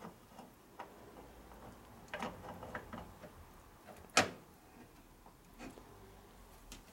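Small metal clicks and knocks as a gear is fitted onto the kick-starter cover of a Harley-Davidson four-speed transmission, with one sharp metallic click about four seconds in.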